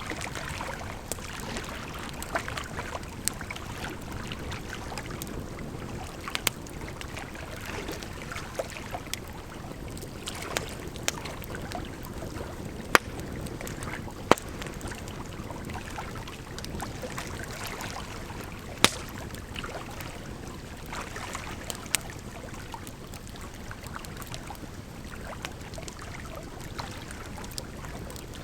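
Bonfire crackling: a steady rushing burn with sharp pops scattered throughout and a few louder snaps around the middle.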